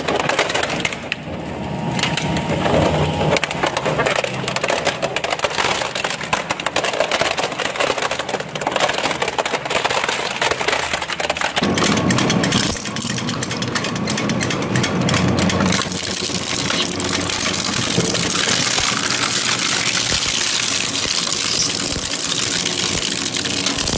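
Twin-shaft shredder's cutter discs tearing apart plastic toys, a dense, continuous crackling and snapping of breaking plastic. The sound changes abruptly about halfway through as a different toy is being shredded.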